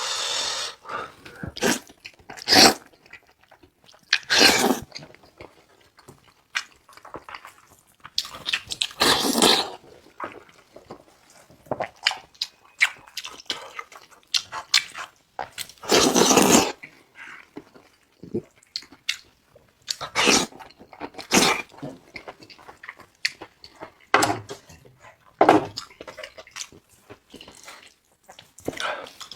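Eating sounds of someone chewing meat from a lamb head, in irregular bursts of varying length with short gaps between them.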